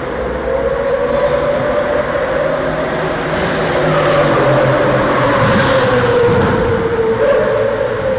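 An engine running at steady high revs. Its pitch sags slowly lower toward the end and then jumps back up about seven seconds in.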